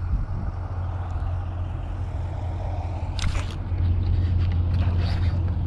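Wind rumbling steadily on the microphone, with a short sharp noise about three seconds in and a few fainter clicks after it.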